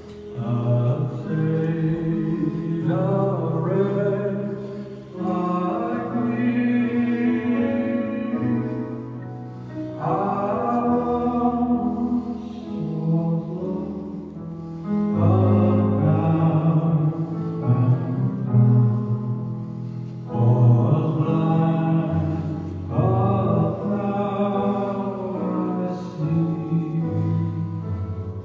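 Church music: a hymn sung in long phrases over held accompanying notes.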